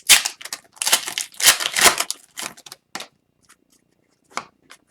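Trading card pack wrapper crinkling and cards being handled: dense rustling for about three seconds, then a few short, light clicks and rustles.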